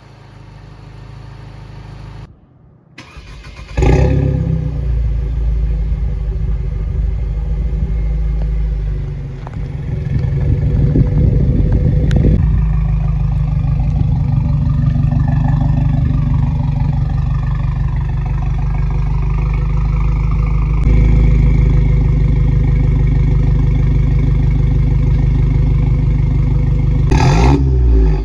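Mercedes-Benz C250 (W204) turbocharged engine running and revving, loud and sustained, with a short dropout a few seconds in.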